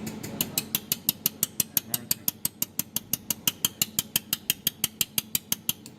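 Jewelry laser welding machine firing pulses at a rapid, even rate of about six sharp snaps a second, its repetition frequency set to 5 or 6 pulses per second. The snaps stop just before the end.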